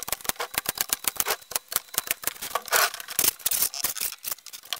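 Cordless brad nailer firing in quick succession, driving brad nails through a plywood tabletop into the frame below: a rapid, irregular run of sharp clicks and snaps, several a second.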